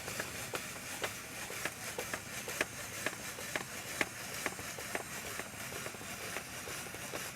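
Hand-cranked spiralizer cutting a zucchini into spirals: irregular crunchy clicks, two or three a second, as the blade bites through the vegetable.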